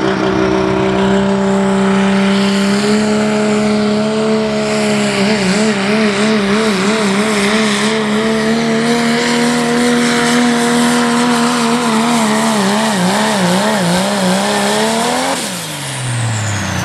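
Dodge Ram diesel pulling truck at full throttle pulling a weight-transfer sled, its engine note wavering rapidly up and down through the middle of the run as the tyres fight for grip. About fifteen seconds in the engine note drops sharply as the throttle comes off at the end of the pull.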